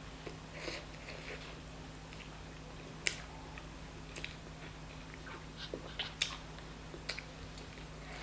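A person chewing and eating chicken curry and rice, with scattered short mouth clicks and smacks over a low steady hum.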